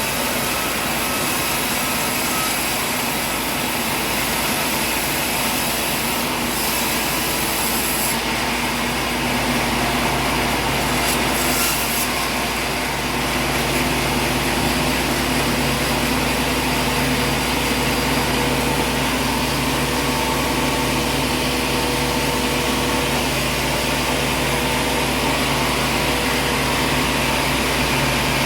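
A machine running steadily: a loud, continuous whirring noise with a few faint steady hum tones, with no stops or strikes.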